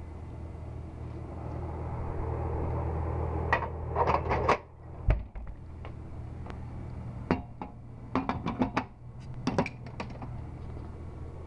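Vintage 7up bottle vending machine being worked: a run of metallic clicks and clunks, one low thud, then further rattling clicks as a glass bottle is taken out of the vend door and opened, over a steady electrical hum.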